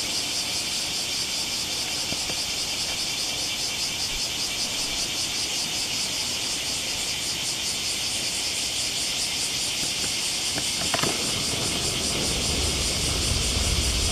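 Chorus of cicadas calling, a loud steady high-pitched buzz with a fast, even pulse.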